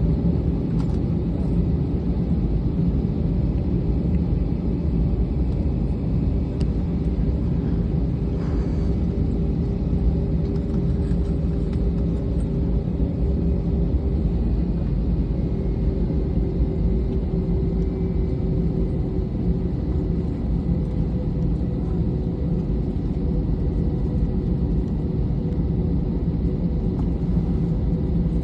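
Steady low rumble inside a jet airliner's cabin as it taxis toward the runway, with a faint steady whine above the rumble.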